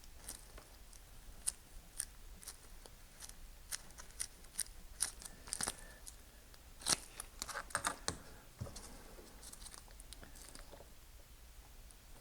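Plastic wiring-harness connectors being handled and pushed into their locks: scattered, irregular sharp clicks and small rattles, the loudest a little past halfway.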